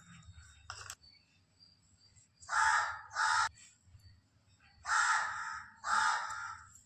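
Harsh bird calls: four loud, rasping caws in two pairs, the second pair about two seconds after the first.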